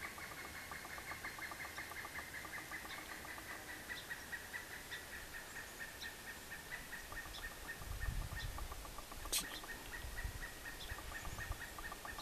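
A continuous, rapidly pulsing high-pitched animal trill that goes on without a break. A few low thumps come in about two-thirds of the way through.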